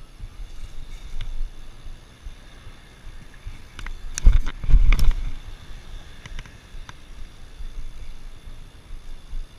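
BMX bike rolling on pavement, with a steady low rumble of tyres and air on the handlebar camera and a few light clicks and rattles. About four to five seconds in, a burst of heavy thumps and rattling comes as the bike jolts over rough ground.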